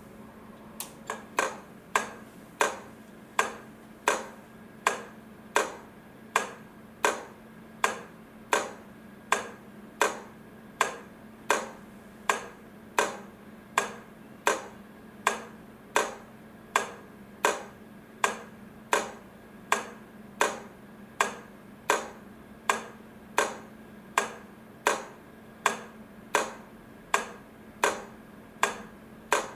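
Railway crossing flasher relay clicking steadily as it alternates the lights, about three clicks every two seconds, over a steady low hum. A few quicker clicks come about a second in as it starts up.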